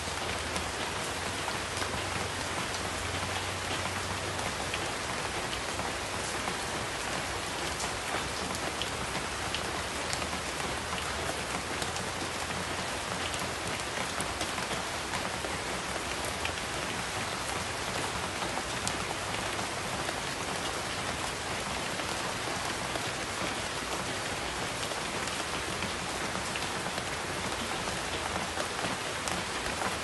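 Steady rain falling on broad banana and palm leaves, a constant hiss dotted with many separate drop hits.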